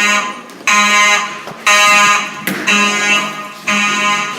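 Simplex fire alarm horns sounding in alarm, a harsh buzzing blast about once a second, each on for about half a second and off for about half a second.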